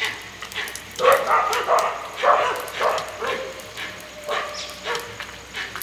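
Dogs barking in a rapid series of short barks, loudest from about one to three and a half seconds in, with a few more barks near the end.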